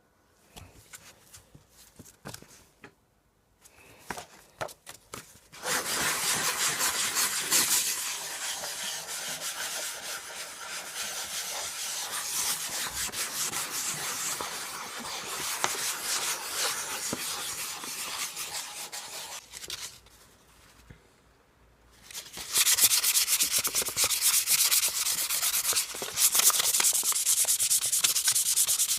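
Sandpaper being rubbed in quick repeated strokes, most likely on the knife's handle or blade, in two long spells. The first starts about six seconds in and runs until about twenty seconds in. The second starts again after a brief pause about two seconds later.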